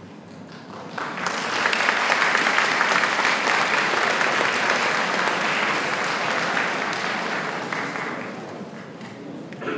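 Audience applauding: the clapping starts abruptly about a second in, holds steady, and fades away near the end.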